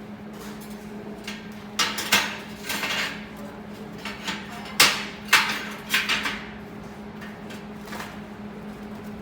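Sharp metallic knocks and clatters, about half a dozen spread over a few seconds, from metal being struck or handled during welding work, over a steady hum.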